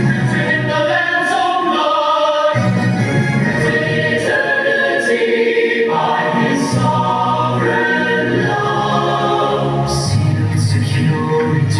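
Choir singing together over an accompaniment that holds long bass notes, changing chord every second or two.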